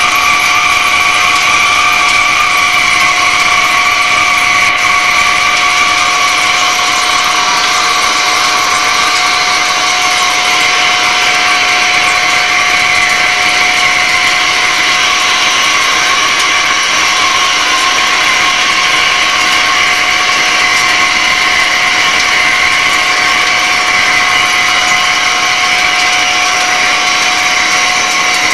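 Hegenscheid 105 underfloor wheelset lathe cutting the steel tread of a railway wheel. It makes a loud, steady machining noise: a hiss with a whine of several held tones, as the tool peels off curling chips.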